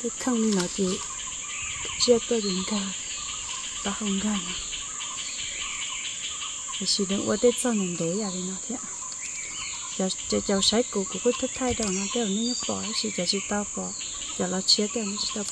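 Steady high-pitched drone of forest insects, with a woman's voice talking in short stretches over it.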